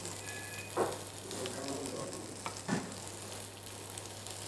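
Red onion and garlic sizzling in olive oil in a frying pan, with two sharp knocks of a knife on a cutting board, about a second in and near three seconds, as cherry tomatoes are halved.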